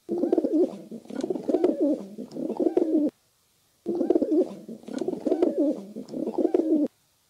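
Feral pigeon (rock dove) cooing: a run of low, wavering coos lasting about three seconds, then after a short pause the same run again.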